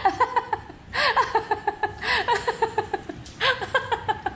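Hearty, high-pitched laughter: strings of quick laughing notes in three or four breaths.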